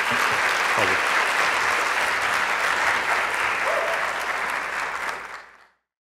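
Lecture audience applauding, a dense steady clapping that dies away near the end.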